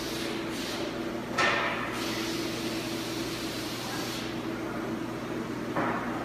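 Steady background hum and hiss of a workshop, broken by a brief louder scuffing noise about a second and a half in and another shorter one near the end.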